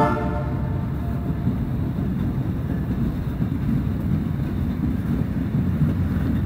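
Decorated freight cars of the Canadian Pacific Holiday Train rolling past, a steady low rumble of wheels on rail. A train horn's note dies away in the first second.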